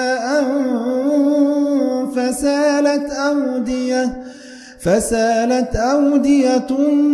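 Quran recitation in Arabic: a single reciter chanting in a melodic tajweed style, drawing out long, wavering ornamented notes. The voice breaks off briefly for a breath about four and a half seconds in, then resumes with 'fa-salat awdiyatun'.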